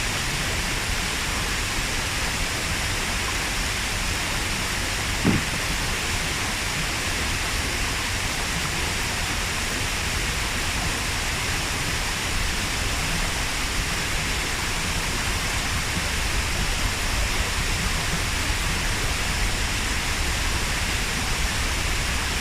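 Steady rushing water of a waterfall, with a single short low thump about five seconds in.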